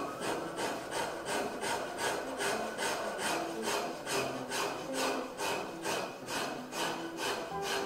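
A hand file rasping a carved wooden frame piece in quick, even strokes, about three a second. Faint background music plays underneath.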